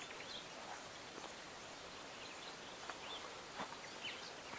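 Faint outdoor background hiss with a few short, faint bird chirps scattered through it and a couple of soft clicks.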